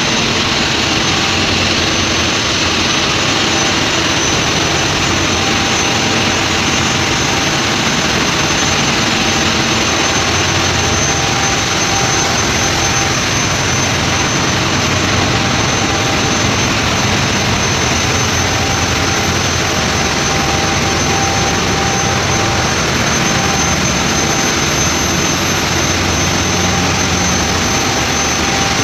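Ship's engine-room machinery running: a loud, steady din of running diesel engines and auxiliary machinery, with a thin high-pitched whine over it.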